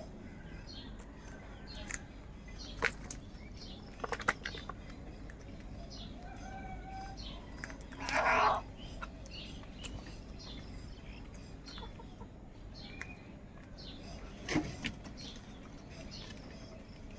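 House crows feeding together, with one loud, harsh caw about eight seconds in. Sharp clicks come a few times, and short high chirps run throughout.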